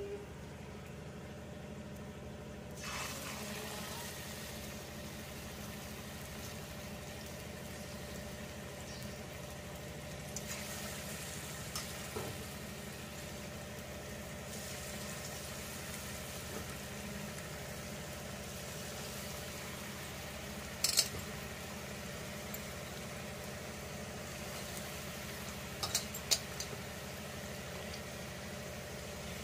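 Gulgule, balls of sweet curd-and-rice dough, deep-frying in hot refined oil in a kadhai: a steady sizzle that sets in about three seconds in as the first balls go into the oil. A few sharp clicks come later, twice.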